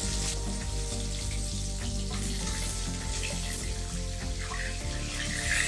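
Katla fish pieces sizzling in hot mustard oil in a kadai, a steady crackling hiss, with soft background music.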